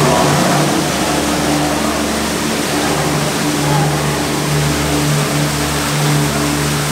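Steady rush of water along a dark boat ride's flume, with a continuous low hum underneath.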